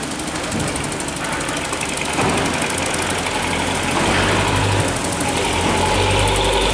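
Long-tail boat engine running steadily with a low drone that grows louder about four seconds in.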